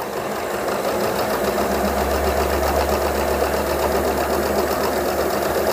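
Electric domestic sewing machine stitching steadily, its needle and motor running with a fast, even mechanical rhythm. It runs at a measured pace, deliberately kept below full speed for neat stitches, and grows a little louder after the first second.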